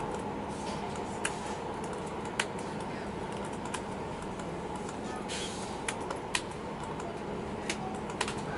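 Inside a moving SNCF TER regional train: steady running rumble with a faint hum, broken by sharp, irregularly spaced clicks and a brief hiss about five seconds in.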